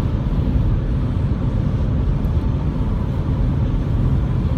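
Steady road and engine noise inside a car's cabin at motorway speed, mostly a low rumble from the tyres and engine.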